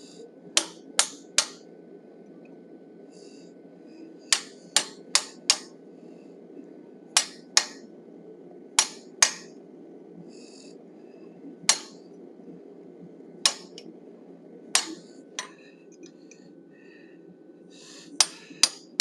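Hand hammer striking a hand-held chisel to texture the beard of a forged steel bison head: short, ringing metallic strikes in quick groups of two to four, about eighteen in all, with pauses between groups.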